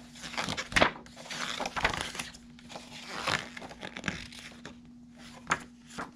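Pages of a glossy paper booklet being turned and handled: irregular rustling and crinkling, with sharp page snaps about a second in and again near the end.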